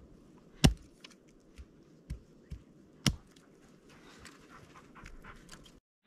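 A dog panting, broken by sharp cracks or knocks. The loudest comes about half a second in and another about three seconds in, with a few fainter ones between.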